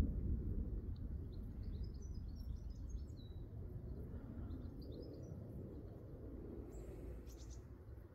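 Low rumble of distant thunder dying away, with small birds chirping briefly in short high calls.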